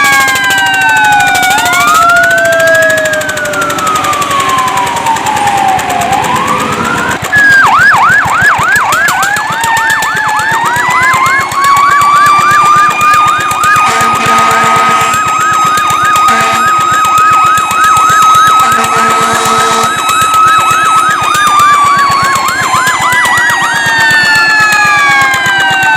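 Fire truck sirens sounding together: slow wails sweeping up and down in pitch, then from about seven seconds in a fast yelp repeating a couple of times a second over a wail that climbs, holds steady and falls again near the end. Two brief low steady tones come in partway through.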